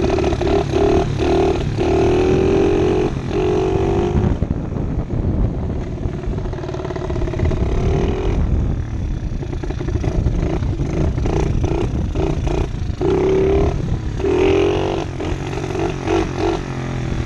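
Small single-cylinder pit bike engine accelerating in several rising pulls, easing off for a few seconds in the middle and pulling up again near the end. Wind rumbles on the helmet-mounted microphone throughout.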